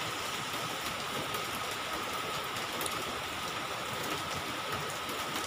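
Steady rain falling: an even hiss that holds level throughout, with a faint steady high tone running beneath it.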